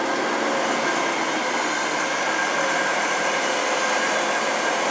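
Front-bumper winch on a Land Rover Discovery 2 hauling in its line under load to drag the vehicle out of a rut: a steady motor whine over a dense mechanical hiss.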